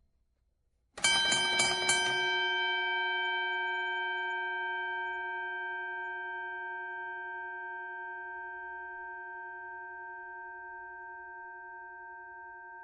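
Boxing ring bell struck four times in quick succession, about three strikes a second, then ringing out with a long, slowly fading, slightly wavering tone.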